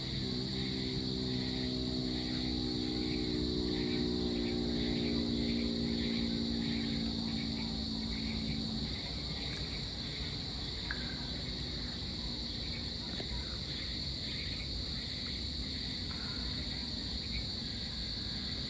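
Dusk insect chorus of crickets: a steady high buzz with a regular pulsing chirp underneath. A low engine drone is heard along with it and fades out about nine seconds in.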